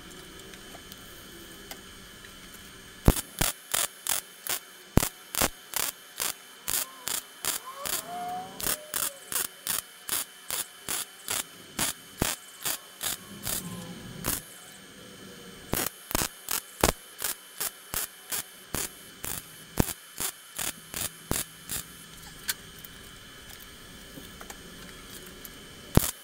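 MIG welder arc on a stainless steel turbo downpipe, struck in short, rapid bursts about three a second, the crackle of stitch welding. It comes in runs with pauses between them, starting about three seconds in.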